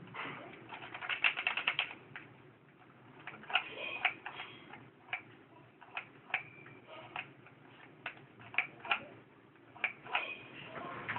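Irregular clicking and ticking from a toy RC helicopter's handheld transmitter as its sticks and buttons are worked, with a quick run of clicks about a second in. No rotor or motor sound: the helicopter is not responding to the controller.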